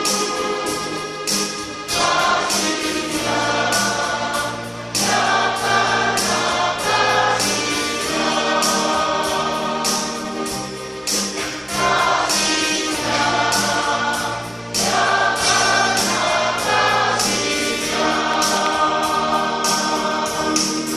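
Church choir singing a Christian praise song in parts, with long held chords.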